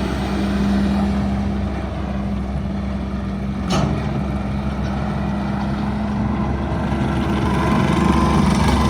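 Behlen RT250 skid steer's engine running steadily, with a single sharp clank about four seconds in.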